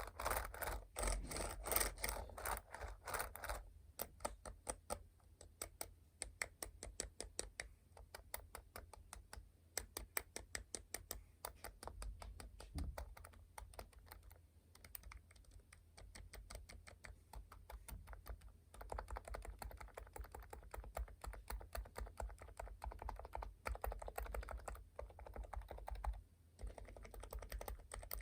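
Rapid continuous typing on a Leopold FC660C Topre electrostatic-capacitive keyboard whose keycaps are weighted with lead tape, giving a deeper keystroke sound, with the board on a sound-absorbing pad. The keystrokes are louder in the first few seconds and again for a stretch in the second half.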